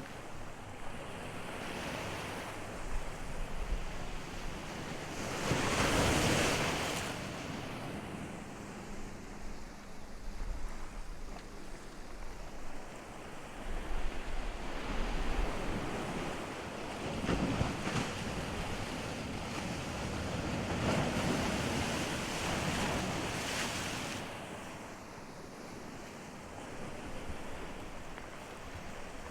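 Ocean surf: waves breaking and washing up the shore in slow swells, the loudest about six seconds in, with more surges later on. Wind buffets the microphone throughout.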